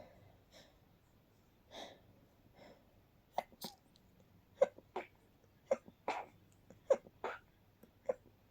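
A person's stifled, held-back sneezes: a few soft breaths, then from about three seconds in a rapid run of short, sharp, muffled sneezes, mostly in quick pairs.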